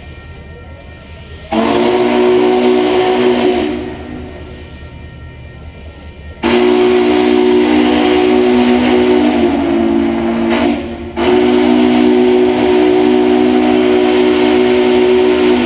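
Union Pacific 4-8-4 Northern #844's steam whistle blowing a chord in three long blasts, the last two almost run together, as the locomotive approaches.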